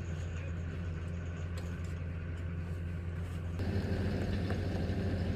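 Motor vehicle engine droning steadily, heard as a low hum, with road noise growing louder about three and a half seconds in.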